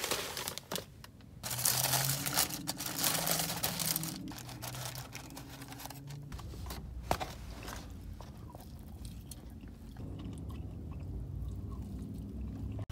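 Paper bag and burger wrapper rustling and crinkling as a fast-food burger is taken out and opened, then chewing as it is eaten. The rustling is loudest in the first few seconds.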